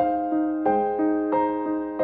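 Background music: a keyboard playing a steady run of notes, about three a second.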